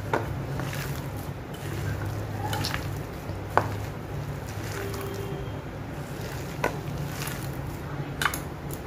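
A hand squishing and kneading a wet mash of jackfruit seeds, chopped onion and coriander leaves in a stainless steel bowl. A few sharp clicks against the bowl stand out over a steady low hum.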